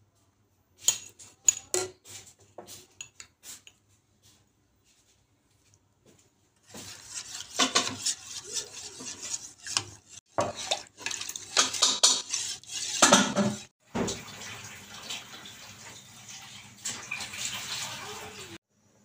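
A metal spoon clinks and taps against a steel saucepan and a jar, with a few sharp taps in the first seconds. From about seven seconds in, the spoon stirs and scrapes around the steel saucepan, mixing milk powder into water, with repeated clinks and the swish of liquid. It stops shortly before the end.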